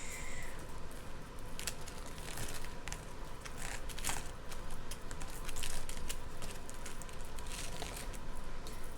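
Hands working through a tangle of jewelry: irregular light clicks and clinks of chains and small metal pieces, with soft rustling.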